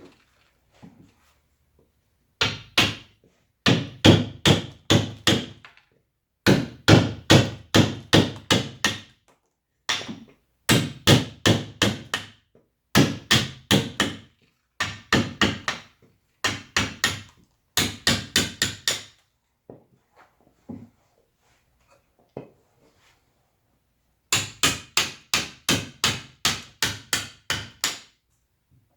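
Mallet striking a carving chisel into wood, in quick runs of about three blows a second with short pauses between runs.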